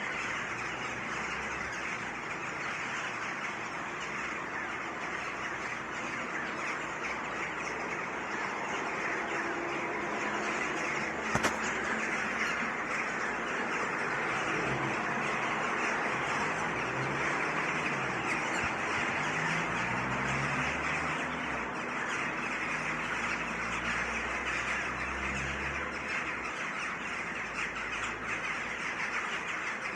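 A dense chorus of many birds in a tree chattering and squawking continuously, with a low, wavering rumble like city traffic beneath it in the second half and a single sharp click about a third of the way in.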